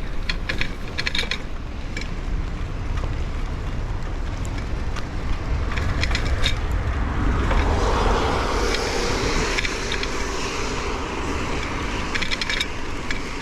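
Bicycle being ridden on a wet road in the rain: a steady low rumble of wind and road noise, with short runs of fast clicking from the bike near the start and again near the end. A hiss swells and fades about halfway through.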